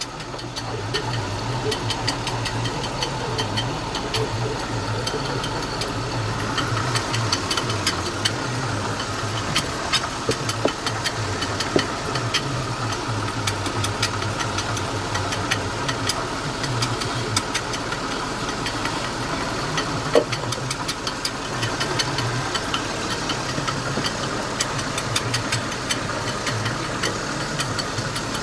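2008 Chevy Malibu's 3.5-litre V6 idling, its accessory belt and pulleys turning with a scraping noise and many light irregular ticks. The noise persists with a new upper idler pulley fitted and WD-40 on the bearing; the owner suspects the rusted lower idler pulley bearing.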